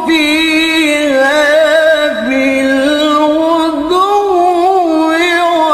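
A male Qur'an reciter's voice in melodic tilawah, drawing out long held notes with wavering ornaments, the melody stepping up and down with a brief dip about two seconds in.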